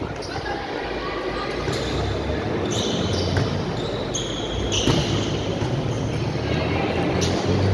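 Volleyball rally in a gym hall: the ball is struck several times with sharp slaps over an echoing murmur of players' and spectators' voices.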